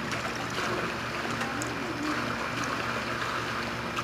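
Steady rushing background noise with faint distant voices.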